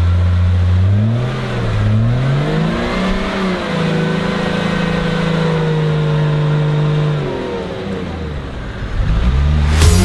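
Engine of a Toyota Land Cruiser 80 on huge tractor tyres revving as it drives through deep mud: the revs climb over the first three seconds or so, hold high, then drop away about eight seconds in. Sharp crackling comes in just before the end.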